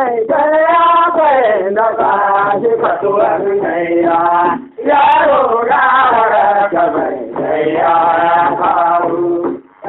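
A man singing a traditional Hausa song in long, wavering phrases, with a brief breath-pause about halfway through and another near the end.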